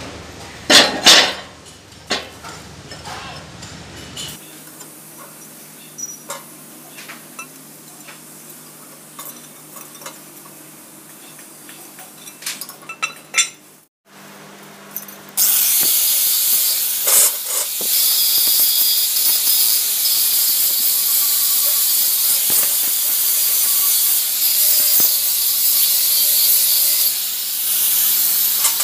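A few metallic clinks as steel pieces are handled. About halfway through, a loud, steady sizzling hiss of stick (arc) welding on steel starts.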